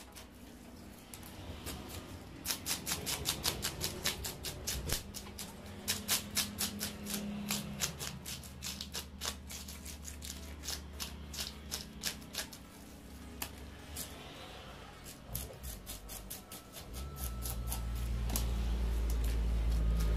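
Hand-held fish scaler scraping the scales off a large catla fish on a wooden chopping block, a quick run of sharp rasping strokes. Near the end a low rumble swells in and drowns them.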